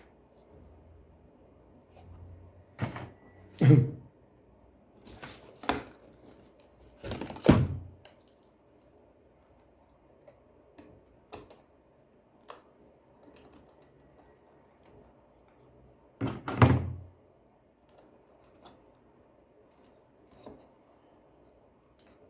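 Scattered knocks and thumps of parts and tools being handled on a work surface during a vacuum cleaner repair: several in the first eight seconds and another loud one about two-thirds through.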